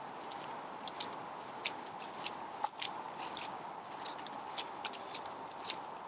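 Footsteps crunching through dry fallen leaves and twigs, an irregular run of crisp crackles.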